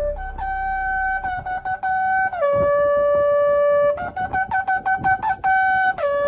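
Shofar blasts: long held notes that step down from a higher to a lower pitch, broken twice by a quick run of short staccato blasts.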